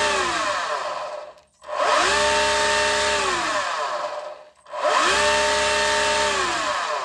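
Electric outboard motor run from stopped to full throttle with no load: a whine that rises quickly to a steady pitch, holds for about two seconds, then winds down and stops. It winds down about a second in, then runs up and down twice more.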